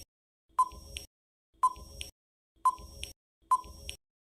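Countdown timer sound effect: a short electronic tick-beep about once a second, four times.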